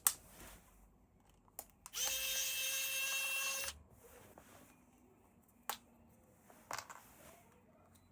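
A small electric motor buzzes steadily for about a second and a half, starting about two seconds in and stopping abruptly. There are a few sharp clicks of handling before and after.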